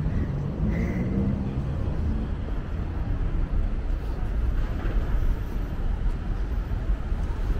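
City street ambience: a steady low rumble of traffic, with a faint voice briefly in the first couple of seconds.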